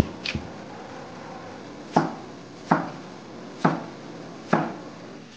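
Chinese cleaver chopping a peeled white vegetable into chunks on a chopping block: about six sharp chops, spaced unevenly, roughly a second apart after a pause near the start.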